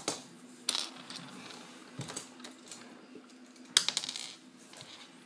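Small plastic Mega Bloks building pieces clicking and clattering as they are handled and snapped together: a few sharp clicks, the loudest cluster a little under four seconds in.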